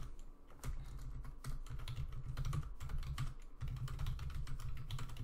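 Typing on a computer keyboard: a steady run of irregular key clicks as a sentence is typed.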